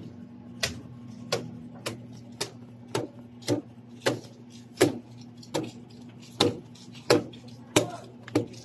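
A cleaning cloth slapping against a counter top, about one sharp slap every two-thirds of a second in an uneven hand rhythm, over a steady low hum.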